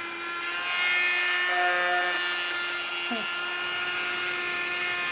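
Small USB-powered keyboard vacuum cleaner's motor running with a steady whine while it is run across a keyboard. It is kind of loud.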